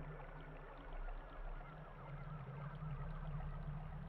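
Room tone: a steady low hum under faint background noise.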